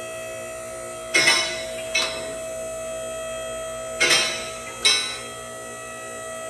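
Background music: a steady held tone under pairs of sharp, ringing strikes that repeat about every three seconds.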